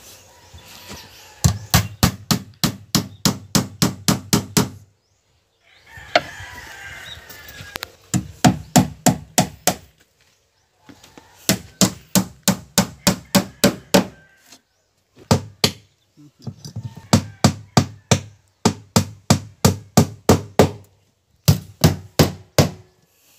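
Hammer driving nails through plywood panels onto a wooden boat hull. The blows come in quick runs of about three to four a second, with short pauses between runs.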